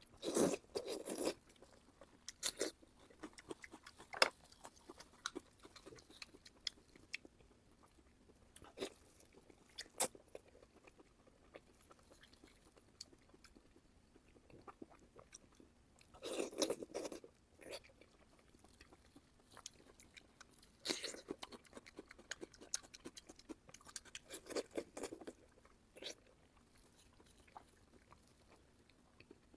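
A person chewing and biting into a large chunk of pork belly, picked up close: bursts of crunchy bites and chewing at the start, a little past halfway and twice near the end, with scattered single chewing clicks in between.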